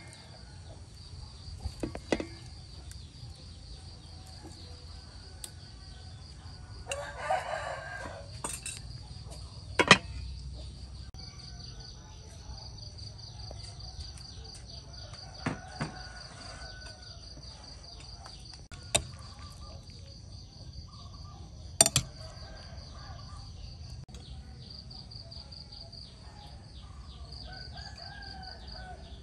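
A rooster crows once, about seven seconds in, over a steady high drone of insects. Sharp clinks of a metal spoon and dishes come now and then.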